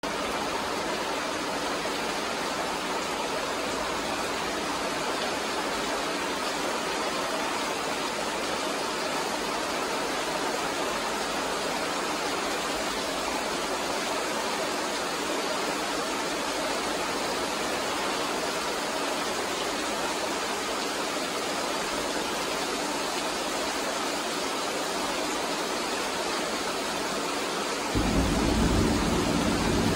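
Heavy monsoon rain pouring steadily. About two seconds before the end a louder, deep rumble sets in suddenly.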